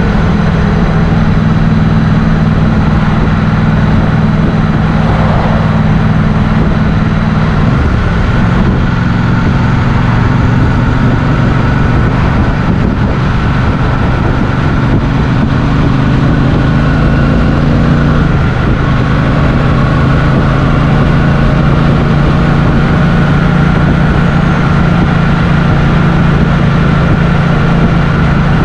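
Motorcycle engine running steadily under way, its note shifting about eight seconds in and again around eighteen seconds.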